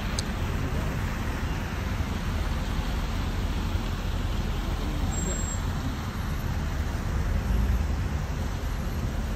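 Steady road traffic noise, a continuous low rumble with hiss over it.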